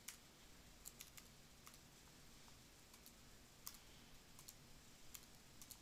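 Faint, irregular clicks of computer keyboard keys as a word is typed, over near-silent room tone.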